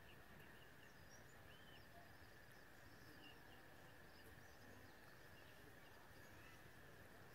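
Near silence: faint steady background hiss with scattered faint bird chirps.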